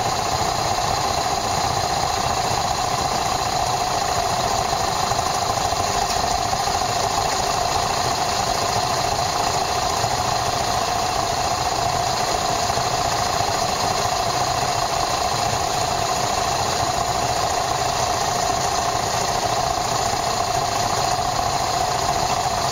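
Yamaha SRX400's single-cylinder four-stroke engine running steadily, recorded from a camera mounted on the motorcycle.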